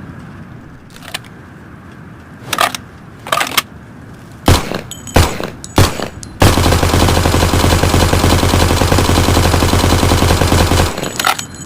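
Thompson submachine gun: a few separate sharp clicks and single reports, then a continuous burst of fully automatic fire lasting about four and a half seconds that stops abruptly.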